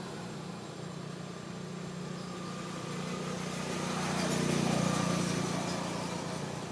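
Steady low hum of a running engine, swelling about four seconds in and easing off near the end.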